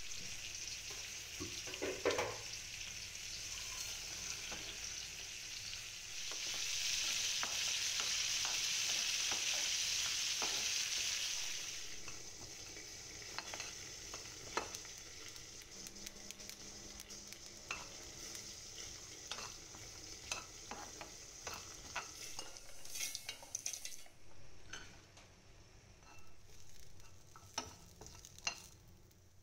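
Oil and food sizzling in a frying pan, with a steady high hiss that gets louder about six seconds in and then dies down. Then a metal spoon stirs roasting peanuts, cashews and seeds, making many light scrapes and clicks against the pan over a quieter sizzle.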